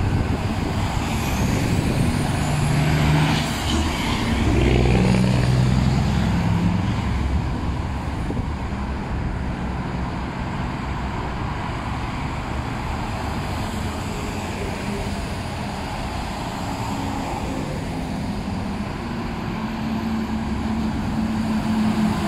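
Busy road traffic with cars and heavy trucks passing close by. A tractor-trailer car hauler's diesel engine grows loudest a few seconds in as it goes past. Another heavy truck's engine rises near the end as it draws alongside.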